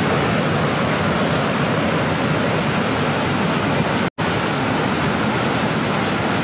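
Muddy floodwater rushing in a steady, loud torrent over and past a concrete weir during a flash flood. The sound drops out for an instant about four seconds in.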